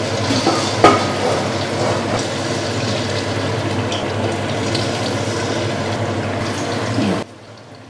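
Corn fritter batter frying in hot oil in a stainless steel wok: a steady sizzle, with one sharp metal click about a second in, from the spoon against the wok. Near the end the sizzle drops suddenly to a much quieter level.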